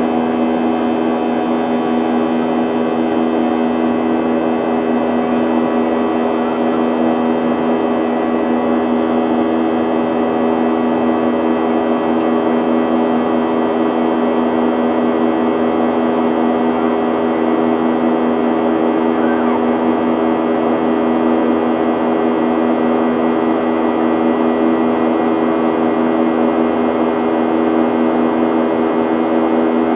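Boeing 737 jet engines heard inside the cabin during the climb after takeoff: a steady drone with a strong low hum and several steady tones above it.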